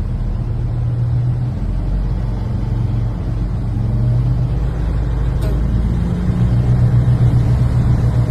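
Steady low engine and road noise from inside a moving car's cabin, growing a little louder about six seconds in.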